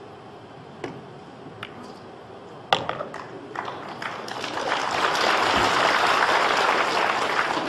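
A sharp cue strike on the cue ball about three seconds in, followed by a few lighter ball clicks, then audience applause that builds and swells into the loudest part.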